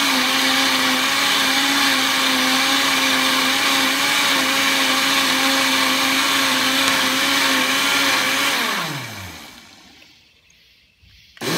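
Countertop blender running steadily, blending a lemonade mixture, with a hand holding the lid on the jar. About eight and a half seconds in the motor is switched off and winds down with a falling pitch, then it starts up again near the end.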